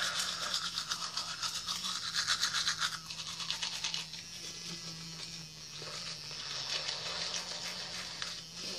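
Manual toothbrush scrubbing teeth through a foamy soap lather in fast back-and-forth strokes, louder during the first three seconds and softer after.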